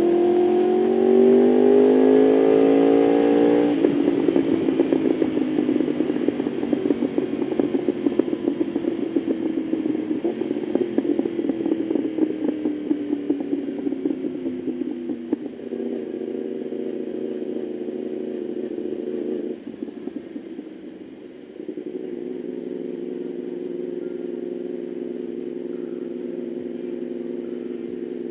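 Yamaha R1's crossplane inline-four through an Austin Racing exhaust, revving up hard for about four seconds, then the throttle snaps shut and the exhaust pops and crackles for several seconds as the revs fall. It then runs at steadier, lower revs, easing off briefly past the middle and picking back up.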